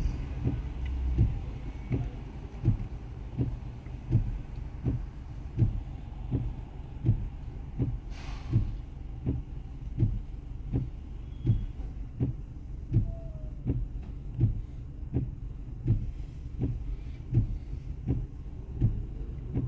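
A car giving a short low thump about three times every two seconds over a steady low hum, with a brief hiss about eight seconds in.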